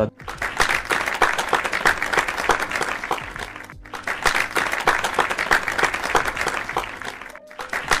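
Dense applause, many hands clapping with no tune, breaking off briefly about four seconds in and again near the end.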